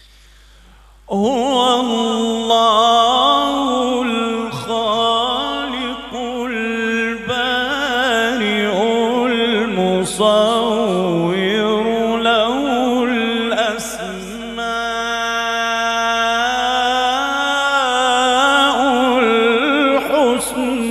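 A man's voice reciting the Quran in the melodic mujawwad style: long held notes with winding ornaments, sung into a microphone. The voice comes in about a second in and carries on without a break.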